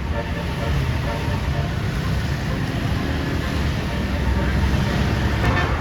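Large tour bus's engine running as it passes close by: a steady low rumble with road noise, growing a little louder toward the end.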